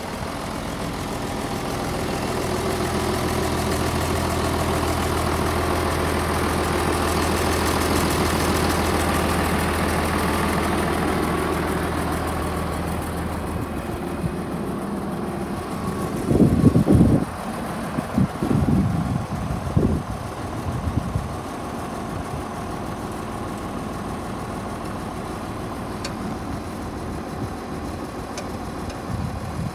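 International 1066's turbocharged six-cylinder diesel idling steadily. Just past the middle, several loud low buffeting bursts sound over the engine.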